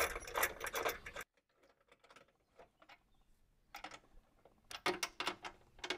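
Metal tool clatter for about the first second that cuts off suddenly, then a run of sharp clicks from a socket ratchet near the end as nuts are run onto the chassis bolts.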